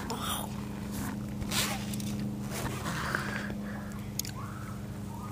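Soft rustling and handling noises, with a couple of small sharp clicks about four seconds in, over a steady low hum.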